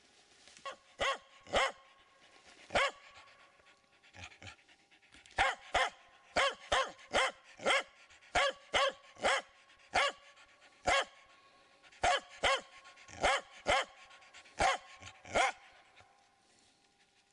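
Finnish Spitz barking at a pine marten: about twenty short, sharp barks at an uneven pace, stopping near the end.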